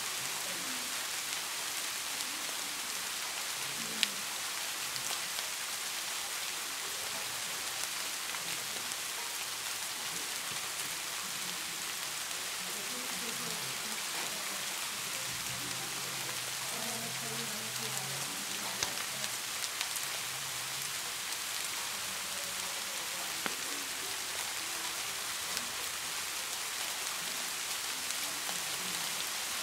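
Steady rain-like hiss throughout, with a sharp click about four seconds in and a few small clicks later on.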